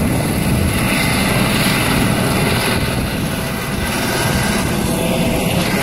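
A steady, loud low rumble with an even hiss above it.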